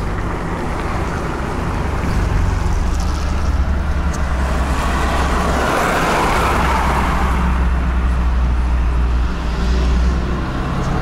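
Heavy truck's engine running steadily with road noise, heard inside the moving cab. About halfway through, a wash of passing traffic noise swells and fades.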